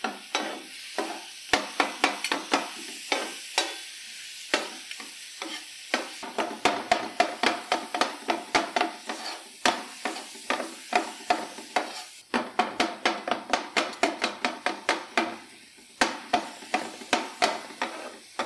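Onions and chopped tomatoes sizzling in oil on a hot tawa while a spatula stirs and chops them, clacking repeatedly against the pan in a quick, uneven rhythm over the steady frying hiss.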